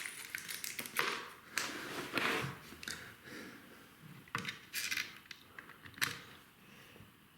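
Irregular small clicks, scrapes and rustles of handling as an electrical wall socket and its screws are offered up and fitted to the back box.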